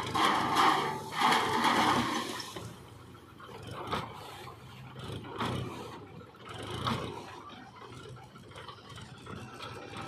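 Load of soil sliding and pouring out of a tipped tractor trailer, with the tractor's engine running. The sound is loudest for the first two and a half seconds, then eases into scattered knocks of falling clods.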